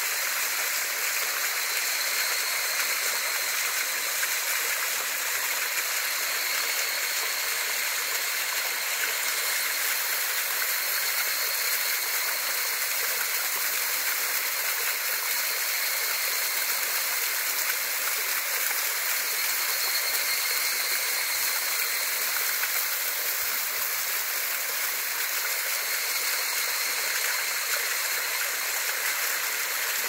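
Small waterfall cascading over layered rock slabs: a steady, even rush of splashing water, hissy and high in pitch with little low rumble.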